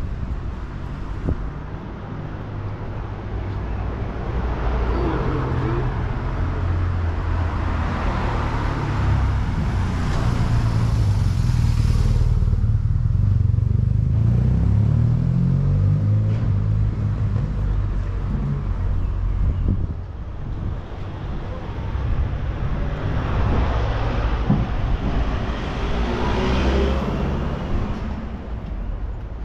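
Street traffic: a motor vehicle's engine rumbling low for much of the time, with passing vehicles swelling and fading about a third of the way in and again near the end.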